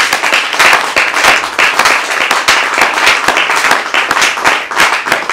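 Congregation clapping and applauding, many hands at once in a dense, irregular patter.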